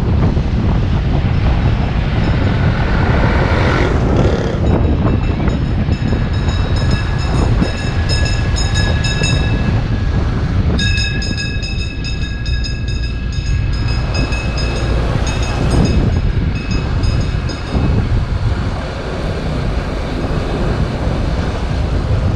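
Wind rushing over the camera microphone and a motorcycle engine running at riding speed. From about four seconds in until near the end, a high-pitched tone sounds in short repeated pulses over it.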